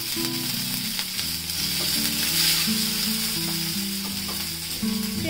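Chopped green chillies sizzling in hot oil with mustard seeds, cumin and curry leaves in a nonstick pan, stirred with a silicone spatula: the tempering (tadka) for paddu batter.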